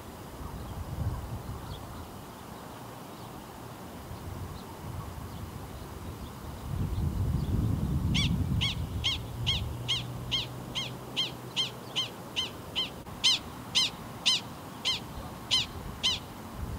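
Gunnison's prairie dog giving a long run of short, sharp barking calls, about two a second, for roughly eight seconds in the second half: the repeated alarm call of a prairie dog standing sentry. A low rumble comes just before the calls begin.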